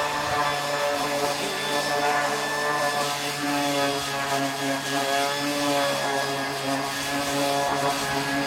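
Electric power sander running steadily, a constant motor drone with shifting whining tones over the rasp of sanding.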